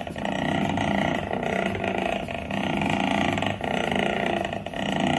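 Small homemade steam engine running steadily on compressed air at about 5 psi, with a continuous mechanical running sound from its valve gear and linkage. The sound dips briefly about once a second.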